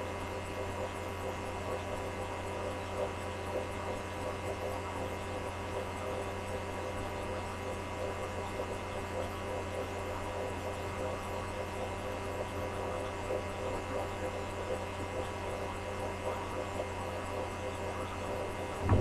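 Steady electrical mains hum: a constant low buzz made of several steady tones, with nothing else standing out.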